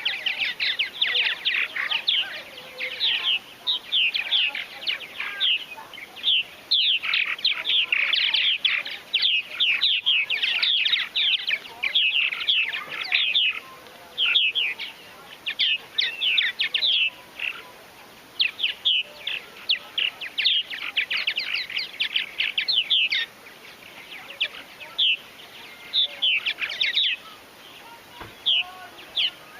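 Many purple martins calling at once: a dense chatter of short, quick chirps and warbles that thins out to scattered calls in the last several seconds.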